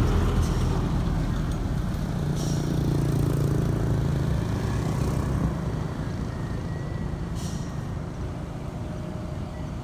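Diesel truck engine running as the truck passes close and pulls away, loudest in the first half and slowly fading after that. A few brief hisses are mixed in.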